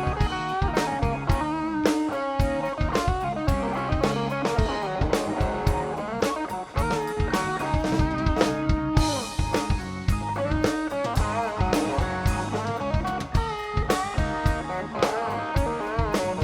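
Blues band playing an instrumental passage: electric guitar lead with bending notes over a steady drum kit beat.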